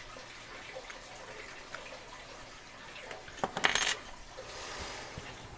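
Metal padlocks clinking and knocking together briefly as they are handled, a quick cluster of clicks with a bright ring about three and a half seconds in, followed by a soft rustle.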